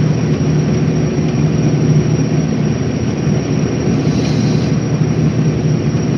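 Passenger catamaran ferry under way at sea: a steady, loud low drone from the engines with an even hiss of water and air over it.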